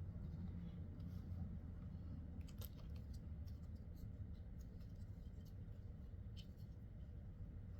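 Scattered small clicks and rustles from handling a fursuit head's fur while fitting ear gauges into its ears, mostly in the middle stretch, over a steady low hum.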